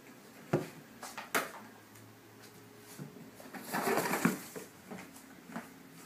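An African grey parrot and a kitten tussling on a sofa: a few sharp clicks and knocks, then a louder noisy burst lasting about a second around the middle.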